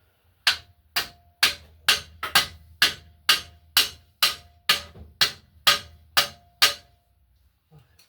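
Steady hammering during a car repair: about fourteen hard blows, roughly two a second, each with a short ring, stopping about seven seconds in.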